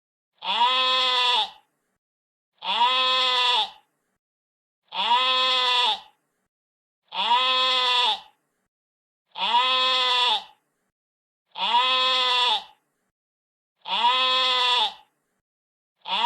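A sheep bleating: one drawn-out, pitched bleat of a little over a second, repeated identically about every two seconds with silence in between. Seven full bleats, and an eighth begins at the very end.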